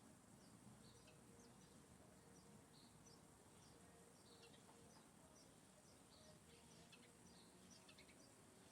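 Faint birds chirping: short, scattered high chirps, several a second, over a low background hiss.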